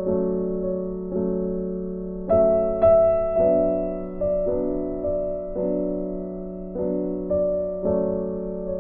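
Background music: a soft keyboard playing slow, sustained chords, with a new note struck about once a second.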